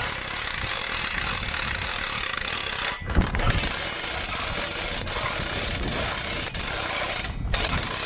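3200 lb two-speed hand winch on a log arch being cranked in high speed, its ratchet clicking in a steady rasp as the doubled winch cable hoists a log. It breaks off briefly with a thump about three seconds in, and pauses again near the end.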